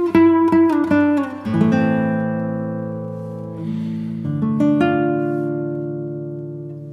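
Background music on acoustic guitar: a run of quick plucked notes, then slower held notes that ring out and fade.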